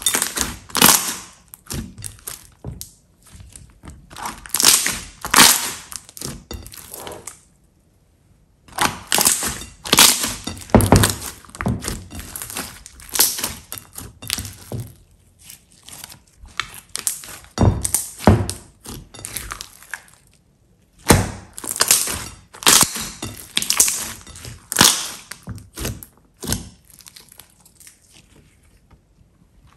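Hands squeezing, folding and stretching a large mass of thick, glossy slime: wet squelching with quick irregular runs of clicks and crackles, broken by two short pauses.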